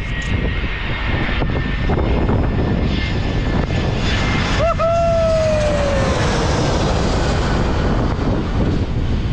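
Landing airliner passing low overhead: a loud, steady engine rumble with a whine that appears about halfway and falls in pitch as it goes by. Wind buffets the microphone.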